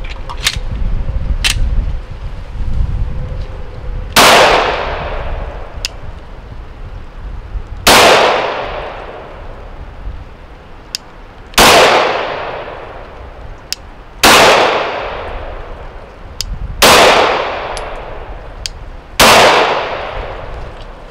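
Six single shots from a nickel-boron-coated 9mm Glock 19 pistol firing Remington 115-grain ammunition, spaced about three seconds apart, each followed by a long fading echo. Faint clicks are heard between the shots.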